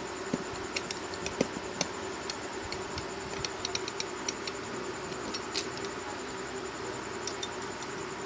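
Light clicks and taps, in small irregular clusters, of a phone circuit board being handled and clamped into a PCB holder, over a steady low hum.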